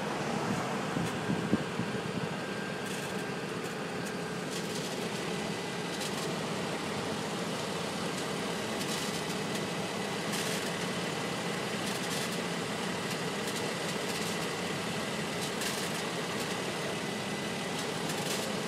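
2009 Infiniti FX35's 3.5-litre V6 idling steadily, with sharp ticks and pops at irregular intervals every second or few, which the owner puts down to the catalytic converters.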